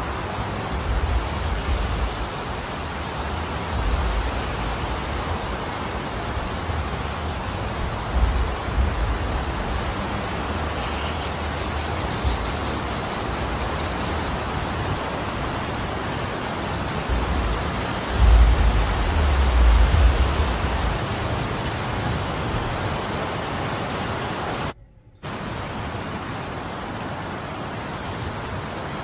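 Snowstorm wind blowing in a steady rush, with gusts buffeting the microphone in low rumbles, the strongest about two-thirds of the way through.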